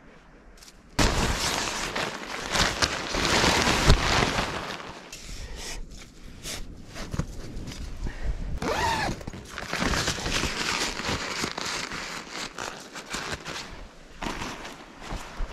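Nylon tent and camping gear being handled, rustling and crinkling with scattered clicks and knocks, beginning abruptly about a second in. A brief wavering squeak comes about nine seconds in.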